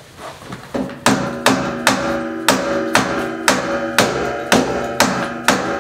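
Dead blow hammer striking a pontoon boat's metal tube frame about ten times, roughly two blows a second, each blow leaving the tubing ringing. The blows drive a tight-fitting rear frame bar into place; the tight fit is put down to excess paint on the tubes.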